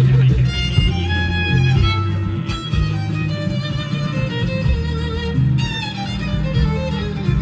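Live bluegrass band playing an instrumental break, a fiddle carrying the melody over bass and rhythm accompaniment.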